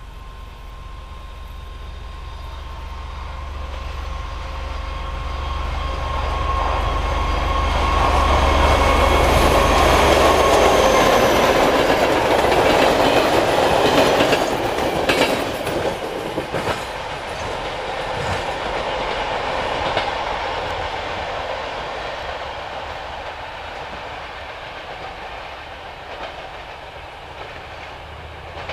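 ZSSK class 754 'Goggle' diesel locomotive hauling a local passenger train through the station without stopping. The engine's deep rumble and a steady whine grow louder as it approaches, the coaches pass with wheels clicking over rail joints, and the sound fades as the train draws away.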